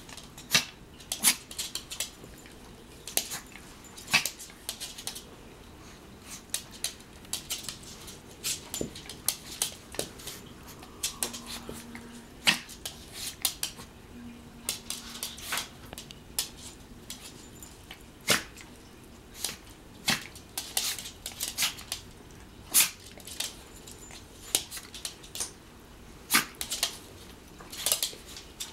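A Pomeranian and a long-haired cat play-fighting on a hardwood floor: scattered sharp clicks and taps of claws and paws scrabbling on the wood, coming in quick irregular clusters.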